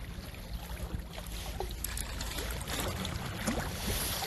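Outdoor seaside ambience: wind rumbling on a phone microphone, with scattered small clicks and knocks from handling.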